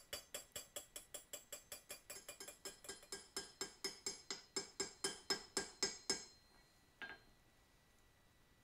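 Ball-peen hammer rapidly peening a steel hatchet head on an anvil, about five ringing metal-on-metal strikes a second, texturing the freshly flattened faces so they look less new. The hammering stops about six seconds in, and one single knock follows about a second later.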